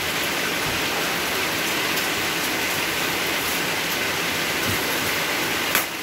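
Steady rain falling, an even hiss that does not let up. A single sharp knock near the end.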